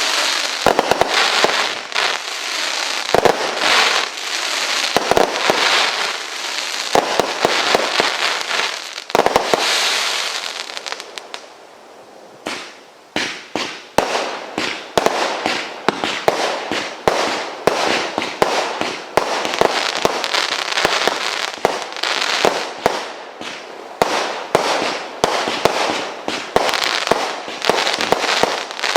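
Oceans 3 by Absolute, a firework cake barrage of linked cakes, firing: a dense rush of rapid shots and crackle. It eases briefly about twelve seconds in, then goes on as a fast run of separate bangs.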